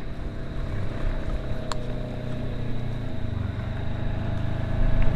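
Side-by-side UTV engine running as it drives up through the grass, a steady low hum that grows louder near the end as it approaches.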